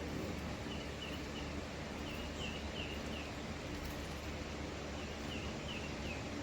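A bird chirping in three short runs of quick, high, slurred notes, several a second, over a steady low outdoor hum.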